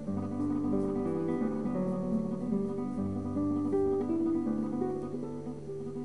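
Background music: an acoustic guitar playing a run of plucked notes.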